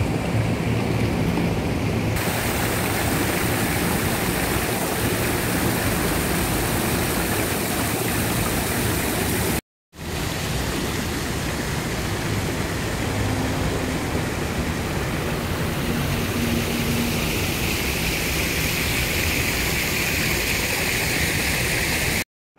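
Steady, loud rushing noise of city street traffic, dropping out abruptly for a moment about ten seconds in.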